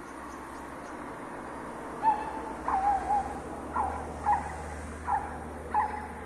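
An owl hooting: a run of short hoots starting about two seconds in, one of them wavering, over a faint low hum.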